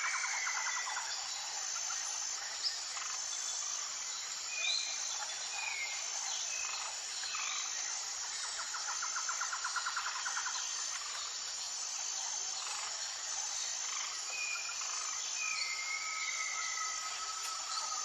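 Tropical jungle ambience: a steady chorus of insects with a high, evenly pulsing tone, over which birds give short whistled calls. A rapid trill sounds near the start and again about halfway through.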